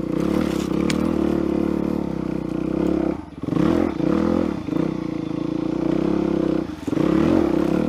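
Suzuki DR-Z400SM's single-cylinder four-stroke engine pulling the bike along under throttle, with the throttle rolled off and opened again twice, about three seconds in and near the end, so the revs dip and climb.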